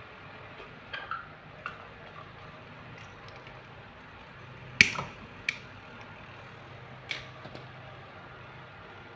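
A few sharp clicks and light knocks from small objects being handled, the loudest about five seconds in, over a steady low hum.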